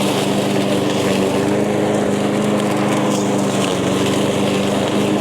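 Echo gas lawn mower engine running steadily at constant speed while cutting tall, thick grass and weeds.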